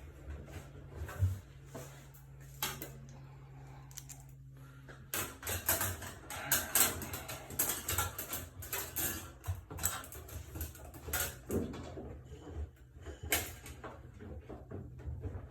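Clicks, knocks and scrapes of hand work on a Whirlpool front-load washer during a door-boot replacement, busiest in the second half, over a steady low hum.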